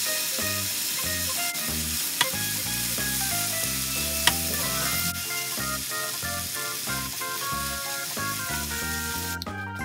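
Sliced onions and chilli paste sizzling in a hot frying pan while a spatula stirs them, with two sharp knocks about two and four seconds in. The sizzling cuts off just before the end. Background music plays throughout.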